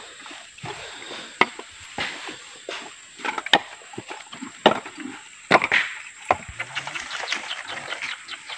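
Irregular sharp woody knocks and thuds, spaced about half a second to a second apart, over a faint rustle.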